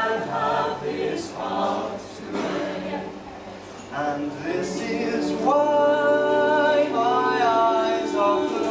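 Mixed male and female a cappella group singing in close harmony without instruments, with a low sung bass line under the upper voices. About halfway through they move from shorter phrases into a long held chord.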